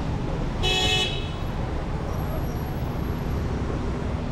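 Steady street traffic noise, with one short horn beep about two-thirds of a second in.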